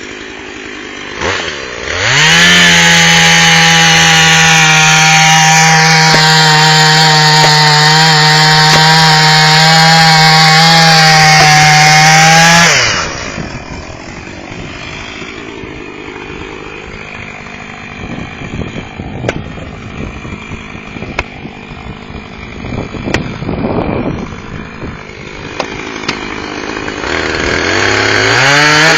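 Husqvarna 450 e-series two-stroke chainsaw revved to full throttle for about ten seconds, then dropping back to a rough idle with a few knocks, and revving up again near the end.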